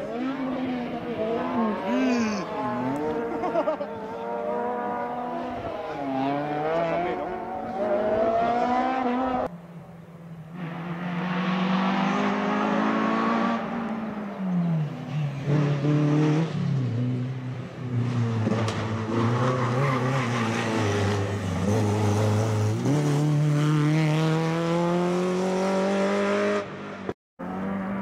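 Two rally cars driven hard one after the other, a Peugeot 206 and then a Renault Clio, their engines revving up and dropping back over and over through gear changes and lifts for the bends. A short break about ten seconds in separates the two cars.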